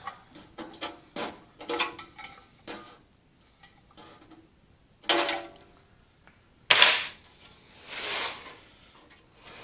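Hand tools working the bolt that holds a furnace blower fan on its shaft: scattered metal clicks and clanks, the loudest a sharp clank about seven seconds in, followed by a short scraping sound.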